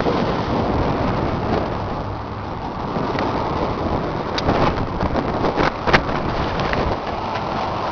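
John Deere 7410's six-cylinder diesel engine idling steadily, with a few clicks and knocks over it, the sharpest about six seconds in.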